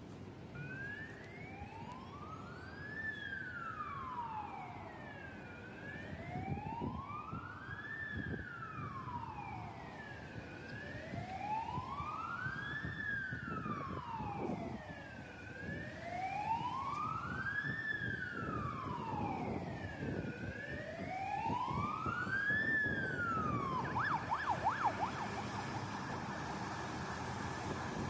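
Fire engine siren on a slow wail, rising and falling about every five seconds and growing louder as the truck approaches. Near the end it switches to a fast yelp, over traffic noise.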